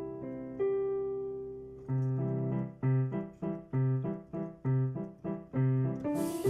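Piano music: held chords, then from about two seconds in a steady pulse of repeated chords, roughly three a second.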